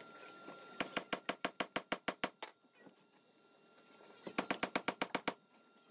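Two quick runs of sharp clicking, about seven clicks a second, as steel bar clamps are worked and tightened along freshly glued stem laminations. One run comes about a second in and the other near the end.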